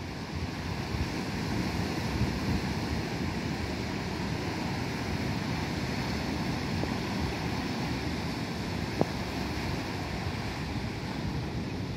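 Ocean surf breaking and washing up the sand between rocks, a steady rushing wash, with wind rumbling on the microphone. A single short click about nine seconds in.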